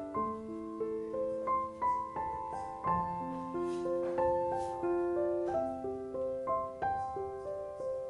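Solo piano music: a slow melody of single notes and chords, each note struck and left to ring.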